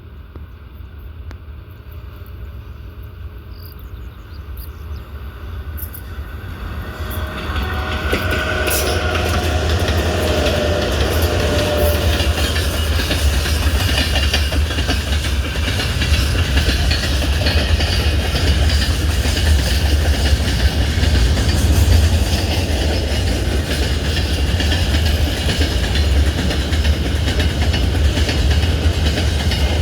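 Train led by a 3ES5K electric locomotive approaching and passing, its wheels clattering over the rail joints. The sound grows over the first several seconds, then stays loud as the train goes by.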